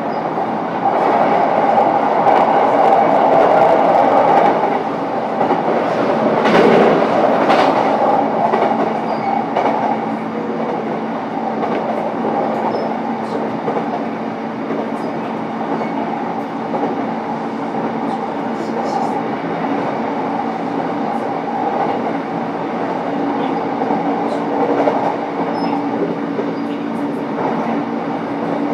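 Running sound inside a JR East E233-7000 series EMU motor car: wheels on rail with rail-joint clicks and the steady hum of the Mitsubishi IGBT VVVF-driven traction motors. A brief louder rush comes about seven seconds in.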